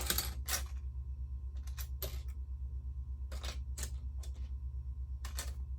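Loose Lego plastic pieces clicking against each other as they are picked through by hand, about eight separate sharp clicks, over a steady low hum.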